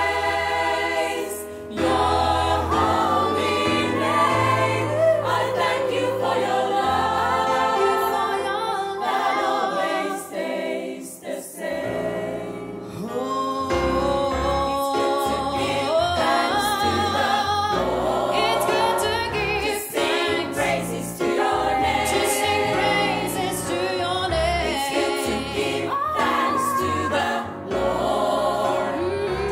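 All-female gospel choir singing in harmony with a female lead vocalist, accompanied on a Nord Stage 3 stage piano.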